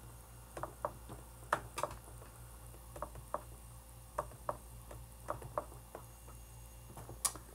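Scattered light clicks, about a dozen at irregular intervals, of someone working a computer running design software, over a steady low hum.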